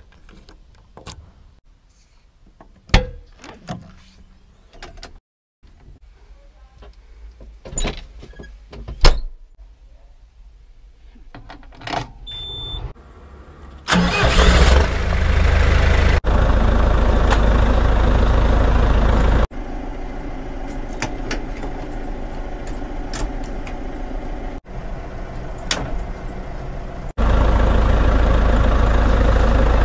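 Clicks and knocks of a key going into a tractor's ignition, then about halfway through the diesel engine starts with a sudden loud burst and runs on at a steady idle. The loudness jumps abruptly several times as the shots change.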